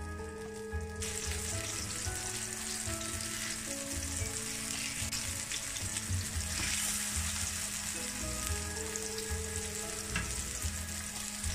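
Chicken kebab patties sizzling as they fry in oil on a stovetop griddle pan, the steady sizzle growing louder about a second in.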